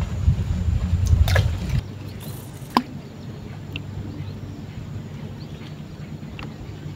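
Low rumbling noise on the microphone with a few knocks, cutting off abruptly about two seconds in. It gives way to quieter outdoor boat ambience: a steady low hum with a few scattered sharp clicks, the loudest just before the three-second mark.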